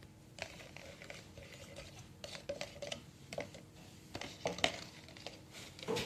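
Scattered light clicks and clinks of dishes and kitchen utensils being handled, with the loudest knock about four and a half seconds in.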